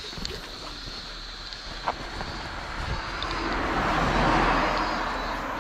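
A vehicle passing on the road, its tyre and engine noise swelling and fading a few seconds in, over steady wind on the microphone.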